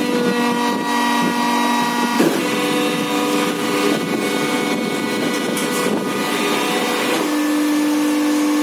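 Plastic injection moulding machine running: a steady machine whine with several held tones that shift in pitch about two seconds in and again near the end.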